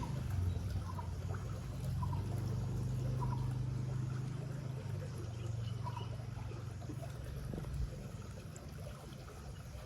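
Rushing river water, a steady wash with a deep low rumble. Over it, for the first six seconds, a faint short chirp repeats about once a second.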